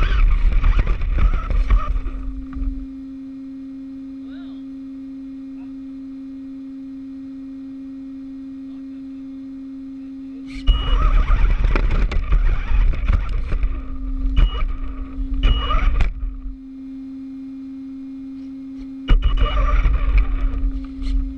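Electric RC car driving in three loud spells, its motor and tyres noisy on the ground: one at the start, a longer one from about the middle, and one near the end. Between them only a steady low hum remains.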